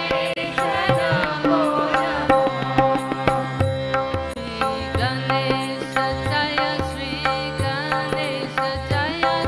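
Indian devotional music: a steady drone under a gliding melodic line, with low sustained notes and regular drum strokes.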